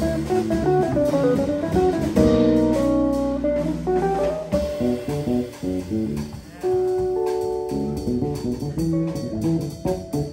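Jazz trio playing live: a hollow-body electric guitar, an electric bass and a Gretsch drum kit with cymbals.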